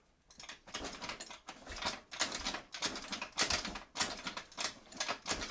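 Scooter being kick-started over and over: a rhythmic run of rasping strokes as the kick-starter turns the engine over, about two to three a second, without the engine catching.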